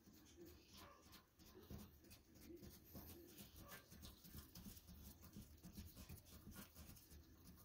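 Near silence, with faint scattered clicks of small hardware being handled at the toilet's floor bolt.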